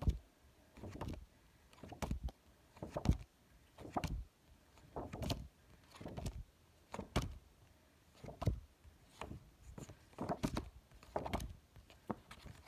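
Phonics flashcards being slid off a pack and flipped in quick succession, a short swish or slap about once a second.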